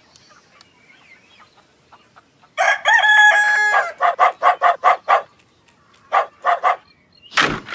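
Rooster crowing, a held call starting about two and a half seconds in, then a quick run of about six short clucks and, a second later, three more. A brief burst of noise comes near the end.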